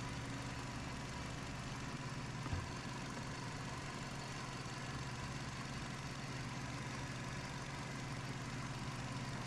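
2010 Hyundai Accent's four-cylinder engine idling steadily, with one small knock about two and a half seconds in.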